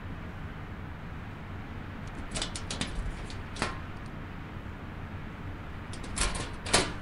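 Steady low rumble with two bursts of sharp metallic clicks and rattles, one about two and a half seconds in and a louder one near the end, from a metal cabinet door being unlatched and swung open.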